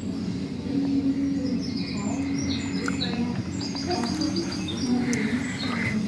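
Birdsong: several short high chirps and rapid trilled phrases, over a steady low hum.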